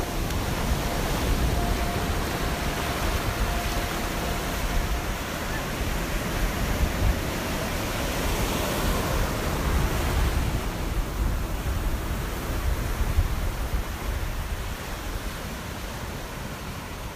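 Steady rushing noise of ocean surf, slowly fading out toward the end.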